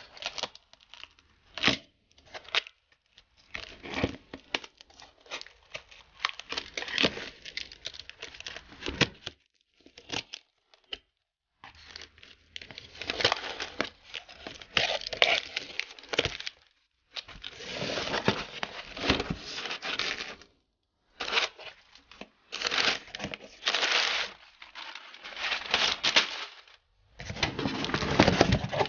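Utility knife slitting the packing tape along a cardboard box, with tape tearing and cardboard flaps rustling as the box is opened. It comes in irregular scraping strokes with short pauses between them.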